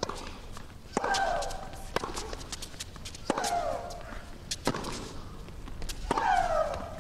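Tennis rally on a hard court: racquets strike the ball six times, about every second and a half. Every other shot comes with a player's loud, shrill shriek that falls in pitch.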